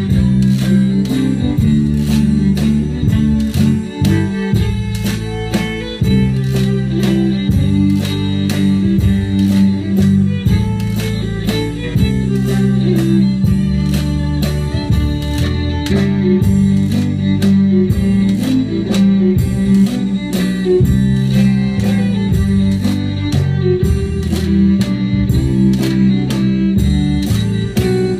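Zydeco band playing live and loud: accordion and fiddle carry the tune over drums and a scraped washboard, with a steady, driving beat.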